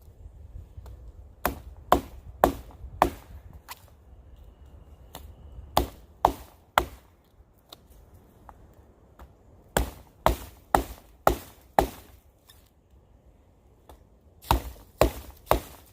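A pocket knife blade batoned into the dry wood of a dead standing tree: sharp chopping strikes in runs of three to five, about two a second, with short pauses between the runs.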